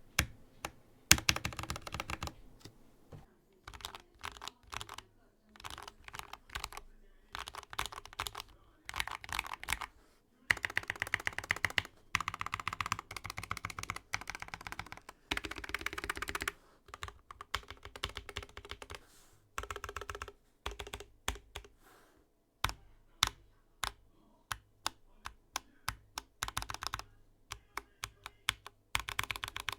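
Mechanical keyboard with lubed Gateron Yellow linear switches and PBT keycaps being typed on: quick runs of keystrokes separated by short pauses, thinning out to single, spaced key presses in the second half.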